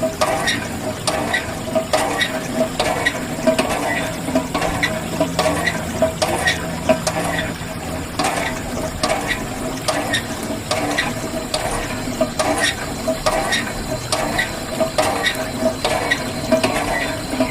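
Small geared mechanism running with a steady, even clicking, about two to three clicks a second.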